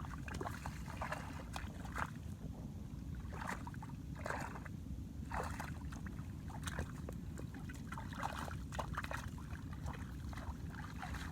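Shallow water splashing and sloshing in short, irregular bursts over a steady low rumble.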